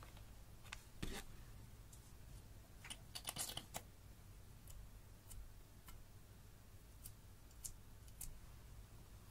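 Faint scattered clicks and taps from makeup tubes, caps and a mascara wand being handled over a glass dish, with a quick run of clicks about three seconds in, over a low steady hum.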